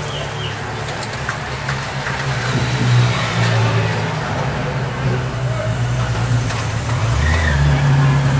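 Engines of a cycle race's following convoy, team cars and escort motorcycles, running steadily as they pass close by, the hum growing louder near the end as the motorcycles come past.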